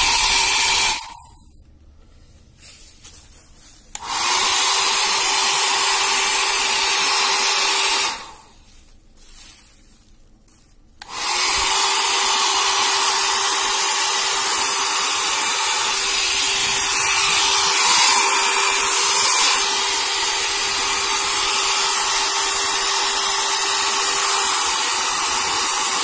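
Nova NHP-8100/05 1200 W hair dryer running: a steady rush of air with a motor whine. It is switched off about a second in, back on about three seconds later, off again for about three seconds, then runs steadily again.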